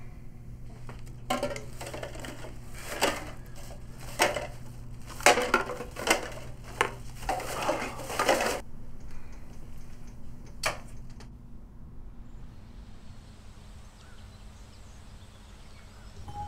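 Clear plastic bag crinkling and red plastic cups clattering as they are picked up off a rug and dropped into the bag, in a run of bursts over about seven seconds. Then a single click, and quiet room tone.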